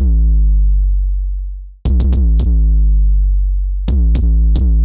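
Synthesized 808-style kick drum from FabFilter Volcano 3 playing a pattern. Each hit starts with a click and sweeps down into a deep, sustained boom from the self-oscillating filter in Metal style. The hits come in quick groups of two or three, and the boom rings on for over a second between groups and cuts off abruptly once.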